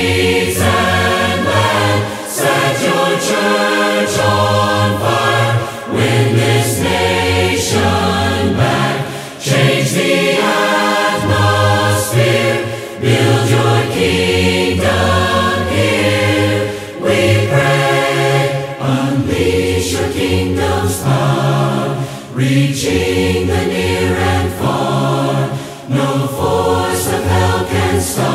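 A choir singing a Christian worship song, in sung phrases with short breaths between them.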